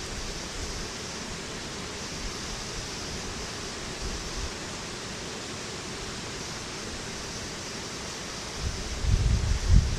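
Steady, even outdoor hiss with no distinct events. Low rumbling bursts start near the end.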